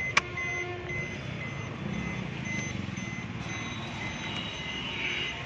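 Maruti Ertiga's key-in reminder beeping in a quick, even series of short high beeps, sounding with the key in and the driver's door open: it is working again now that the blown dome fuse has been replaced. A sharp click sounds just after the start.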